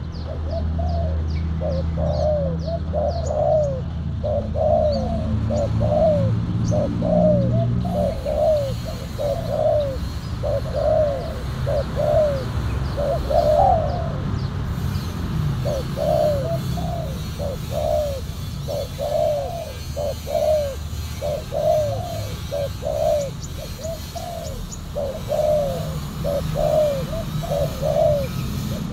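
Spotted doves cooing, a long run of repeated coos with a short pause about halfway, over a low rumble. Faint high chirps of small birds come in during the first few seconds.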